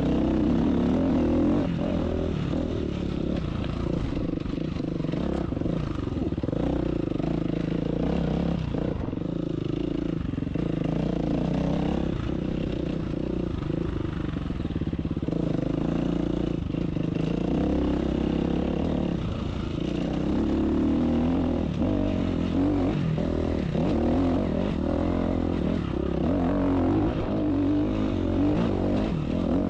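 Dirt bike engine running while riding a single-track trail, its pitch rising and falling with the throttle.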